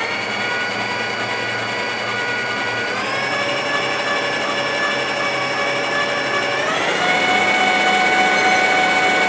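Electric stand mixer motor running as it beats cake batter, a steady whine that steps up in pitch three times as the speed is turned up: at the start, about three seconds in and about seven seconds in.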